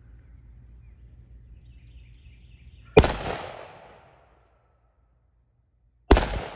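Two loud gunshots about three seconds apart, each with a short echoing tail that dies away.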